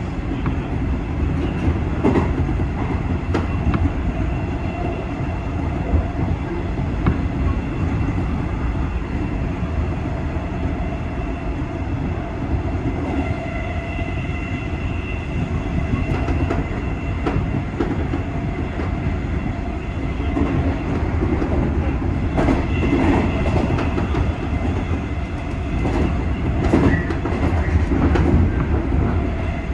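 JR 201 series electric train running at speed, heard from the cab: a steady rumble of wheels on rail with a thin steady whine over it. Irregular clicks of the wheels over rail joints come thicker in the last several seconds.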